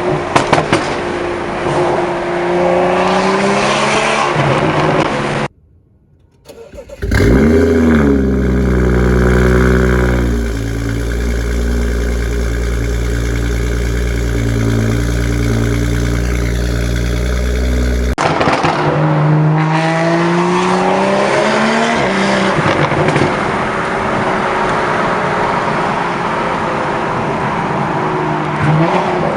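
BMW M235i's straight-piped N55 turbocharged inline-six, with no muffler or resonator, revving and accelerating with rising and falling pitch. A brief gap about five seconds in, then a long stretch of steady deep drone before it revs again.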